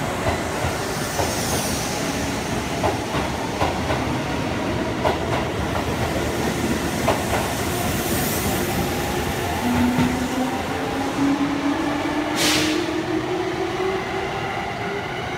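Electric commuter train moving along a station platform: wheels clack over rail joints against a steady rumble. From about ten seconds in, a motor whine rises steadily in pitch as the train picks up speed.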